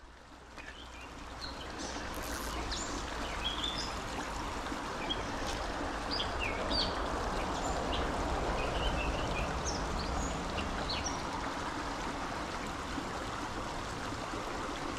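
Shallow creek water running steadily over rocks, fading in over the first couple of seconds, with small birds giving short chirps now and then.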